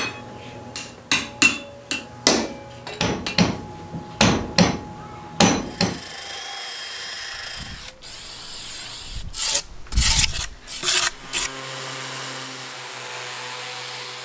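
A hammer strikes a hot railroad spike on an anvil in a quick run of ringing blows, over a dozen in about five seconds. Then comes rough scraping, with louder strokes, as the finished hook is worked in a bench vise. Near the end a cordless random orbital sander starts a steady hum on a wood slab.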